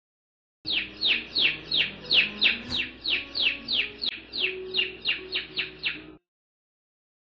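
Canary singing a steady run of about twenty short chirps, about four a second, each sliding down in pitch. It starts suddenly a little under a second in and cuts off abruptly near the end.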